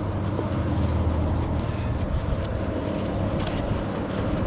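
Traffic noise: a vehicle's low engine hum and tyre noise, strongest in the first two seconds and then easing into a steady background rumble.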